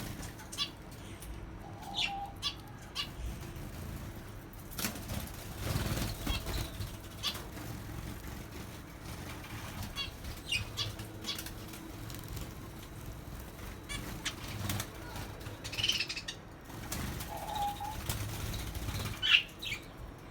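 Birds flapping their wings in short rustling rushes, with scattered short high chirps.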